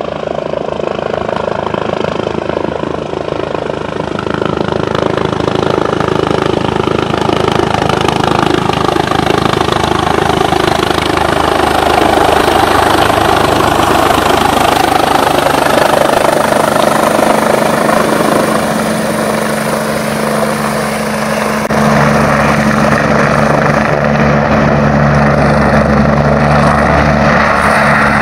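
Air ambulance helicopter coming in to land: steady rotor and engine noise grows louder as it approaches and descends. About three-quarters of the way through it settles into a steadier, deeper drone as it sits on the ground with rotors still turning.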